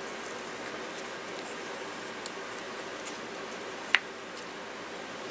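Small cardboard-and-paper miniature handled in the fingers, with a few faint ticks and one sharp click about four seconds in as the thumb presses on its top, over a steady low hiss.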